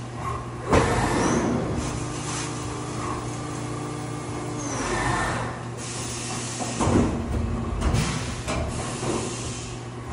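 Haas CNC vertical milling machine cutting a part under flood coolant: a steady machine hum with the hiss of coolant spray, a held whine for a few seconds in the first half, and louder surges of cutting noise about a second in and again around seven to eight seconds.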